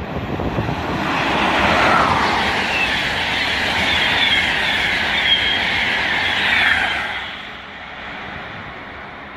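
A passenger train passing through a station at speed. A rushing noise builds over the first couple of seconds, carries high whistling tones, and falls away about seven seconds in.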